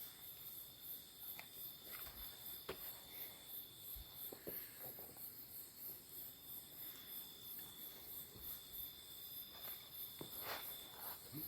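Night insects calling: a very high chirping that pulses about three times a second, over two steady high-pitched trills. A few faint clicks and rustles can be heard beneath.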